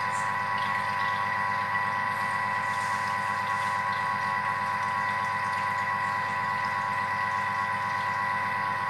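Thermomix food processor running at speed 3, mixing eggs and milk in its steel bowl: a steady motor whine made of several even tones over a fine low whirr, with no change in pitch.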